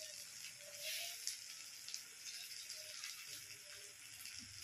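Dried fish and vegetables cooking in masala in a wok over a gas flame, sizzling faintly and steadily.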